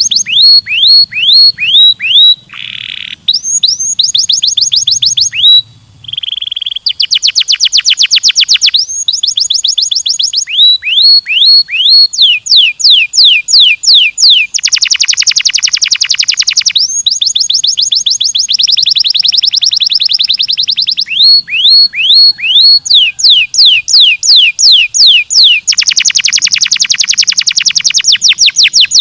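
Domestic canary singing a long song: runs of quick, repeated falling whistles change to rapid trills and short buzzy rolls, each phrase a new repeated note, with only brief pauses.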